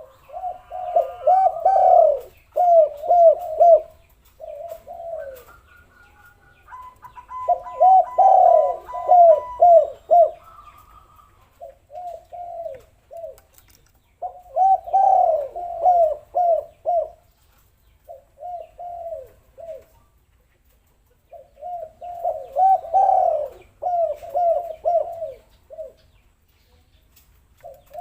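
Spotted doves (tekukur) cooing in repeated phrases of short, arching coos, each phrase a second or three long with short pauses between, the phrases partly overlapping. Faint higher chirps and a thin steady whistle sit above the coos about a third of the way in.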